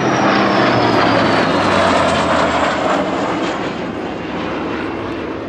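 MiG-15 jet fighter and Hawker Sea Fury piston-engined fighter flying past together. A high jet whine falls steadily in pitch over the lower sound of the propeller aircraft's engine, growing fainter near the end.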